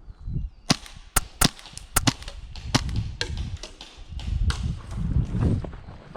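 Gas airsoft pistol shots: a string of about eight sharp cracks at irregular intervals, the loudest in the first two seconds, over a low rumble.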